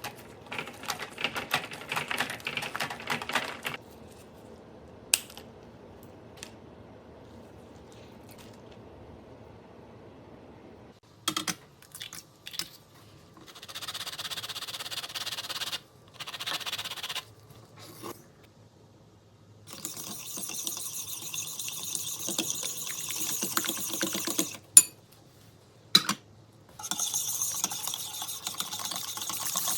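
Kitchen baking sounds: sharp clicks and clinks of utensils and containers, with several stretches of steady hiss and rustling a few seconds each, sped up.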